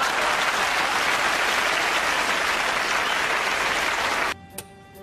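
Studio audience applauding, a dense steady clatter of clapping that cuts off abruptly about four seconds in. Faint music with held notes follows.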